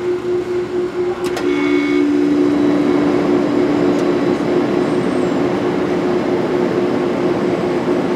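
Soft-serve ice cream machine running while dispensing soft ice cream: a steady hum with a second, lower hum joining after a click about a second in, over a steady whirring rush.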